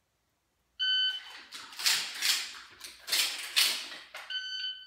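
A shot timer's start beep, then about three and a half seconds of scuffling and clacking as dummy shells are pushed by hand into a Benelli M2 shotgun's tube magazine during a moving load drill. A second identical beep near the end marks the 3.5-second par time.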